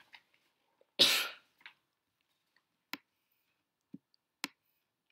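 A single short cough about a second in, followed by a few sharp clicks and soft taps.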